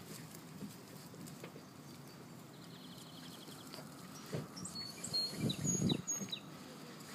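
Steady outdoor background noise with a faint high trill about three seconds in, then a few short high chirps and a loud burst of rustling around five to six seconds in.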